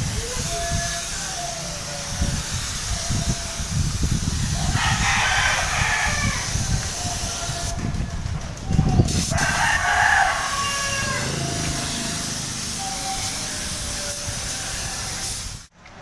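Compressed-air spray gun hissing steadily as it sprays paint, with a brief break about halfway through. A rooster crows twice in the background.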